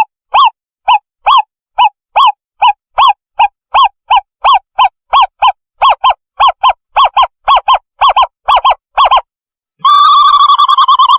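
Recorded owl call played as a bird-trapping lure: a long run of short hooting notes, about two to three a second and quickening, breaking into a fast trill near the end.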